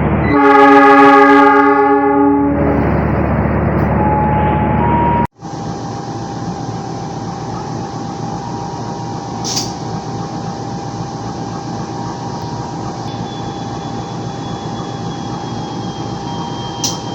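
Diesel-electric locomotive horn giving one loud blast of about two seconds over the engine's running: the semboyan 35 signal, the driver's answer that the train is ready to depart. About five seconds in the sound cuts off suddenly, and a locomotive's steady running rumble with a faint constant whine follows.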